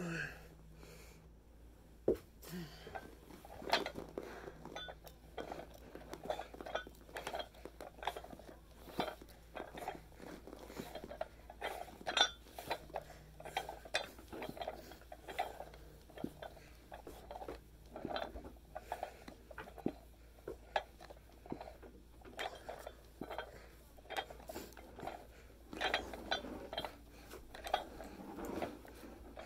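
Iron weight plates clinking and rattling on a pair of plate-loaded dumbbells as they are lifted and lowered, a sharp metallic click about once a second.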